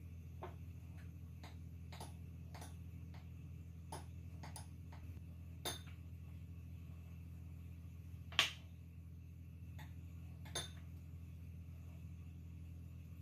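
Metal fork and spoon clinking and scraping against a ceramic bowl while coating small cookie balls in melted chocolate. There are light scattered clicks, with a sharper clink about eight seconds in and another about ten and a half seconds in, over a steady low hum.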